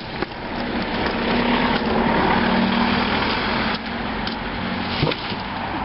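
A car's engine running with a steady rushing noise, growing louder over the first couple of seconds, then dropping off suddenly a little past the middle.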